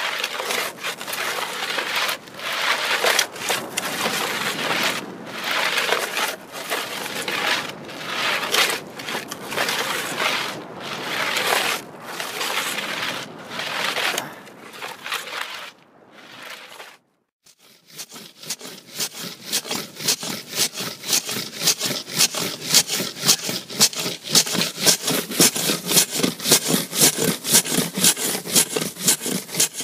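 Repeated scraping and rubbing on a hard surface. The strokes are slow and uneven at first, stop briefly just past halfway, then go on as fast, even strokes about three or four a second.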